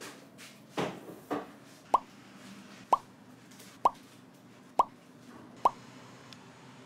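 Five identical water-drop 'plop' sound effects, one a little under every second, each a short upward-gliding blip. Two softer knocks come just before them, about a second in.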